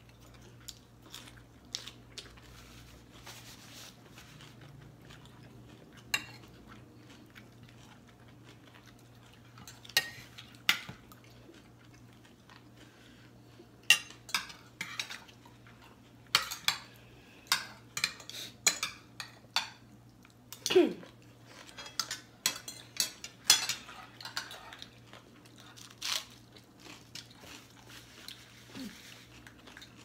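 Metal forks and spoons clinking and scraping on ceramic plates as two people eat: irregular sharp clicks, sparse at first and coming thick and fast in the second half. One short falling squeak about two-thirds of the way in.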